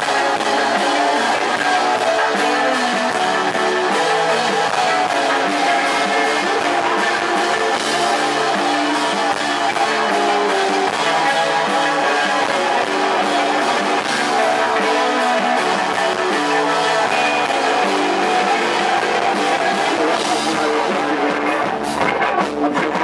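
A live post-punk rock band playing, with electric guitar to the fore.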